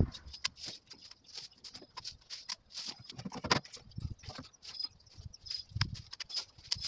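Hedge branches and leaves being pulled and cut by hand, rustling and snapping in irregular crackles, with a few low thumps.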